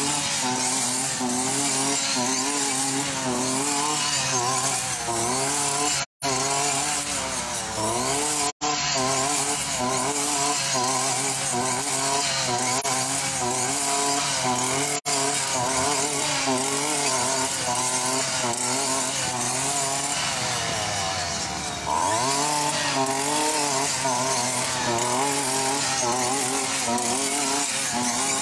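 Petrol string trimmer (brush cutter) running at high revs while cutting roadside grass and weeds. Its pitch wavers as the head works through the growth, and about three-quarters of the way through the engine slows briefly and revs back up.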